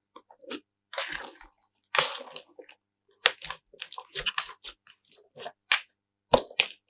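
Slime being worked in short bursts of sticky crackling and clicking, with two longer crackles about one and two seconds in, then a quick, irregular run of sharp clicks.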